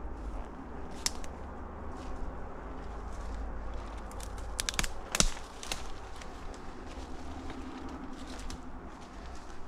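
Footsteps through dry leaf litter and brush, with twigs crackling and snapping; the loudest snap comes a little past halfway, over a steady low rumble.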